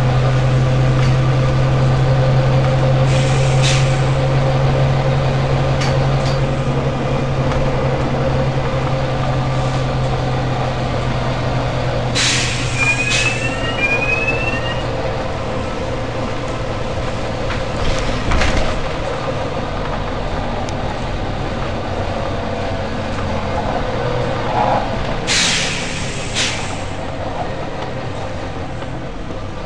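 Volvo B9TL bus's diesel engine running with a steady hum, fading somewhat in the second half, broken by about six short hisses of compressed air being let out of the air brakes and air system, the loudest about 12 and 25 seconds in.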